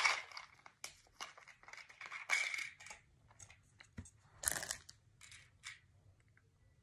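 Plastic packaging rustling and crinkling in short bursts as small cube parts are handled, with a sharp click about four seconds in. The rustling dies away near the end.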